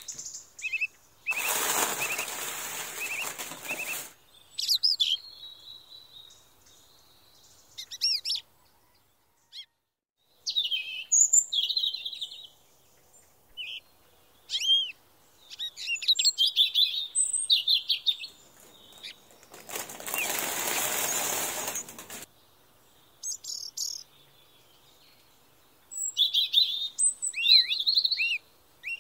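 Small birds chirping in many short, high calls scattered throughout, with two loud stretches of hissing noise, each two to three seconds long, near the start and about two-thirds of the way through.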